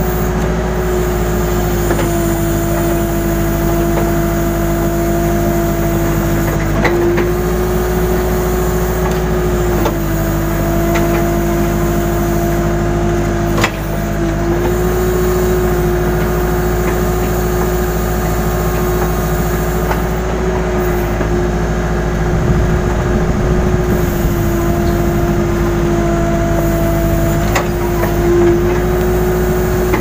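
Case N Series backhoe loader's diesel engine running steadily, its pitch dipping and recovering a few times as the hydraulics take the load of the digging backhoe. A few sharp clunks from the arm and bucket are heard along the way.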